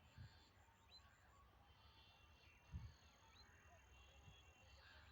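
Near silence: faint outdoor background with a few short, faint high chirps and one soft low thump just before the middle.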